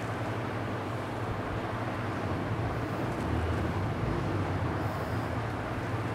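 Steady low rumbling background noise with no distinct taps or cracks.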